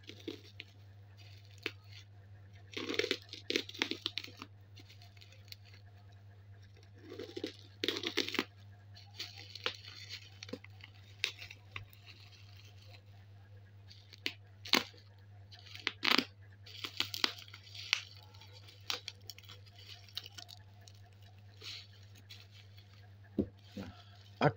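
Black plastic bubble wrap being cut and torn open with a blade: irregular bursts of crinkling and tearing, with a couple of sharp clicks in the middle, over a steady low hum.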